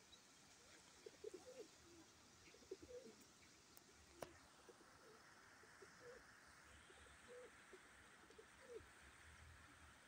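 Faint pigeon cooing: short, soft notes every second or so over a steady rushing hiss of river water, with one sharp click about four seconds in.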